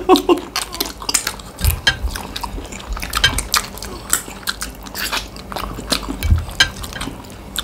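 People eating fast with their hands: irregular wet chewing and lip smacks with small clicks, and a couple of dull low knocks.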